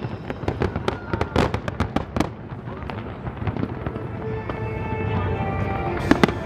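Fireworks display: rapid bangs and crackles from exploding shells, thick for the first two seconds, then thinning out while steady musical tones rise underneath, with a new cluster of bangs near the end.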